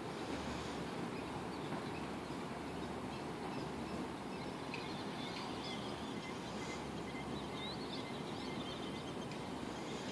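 Steady background noise with small birds chirping. The chirps are short and repeated, beginning about halfway through and growing more frequent toward the end.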